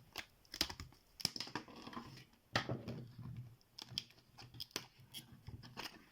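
Lock pick and tension wrench working in an ABUS T65AL/40 padlock's keyway: irregular light metallic clicks and short scrapes, a few a second, as the pins are raked and set.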